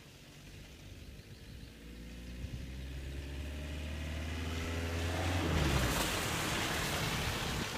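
Peugeot 205 XTD's 1.9-litre diesel engine accelerating toward the listener, its note rising in pitch and growing louder. About six seconds in it passes close by in a loud rush of engine noise.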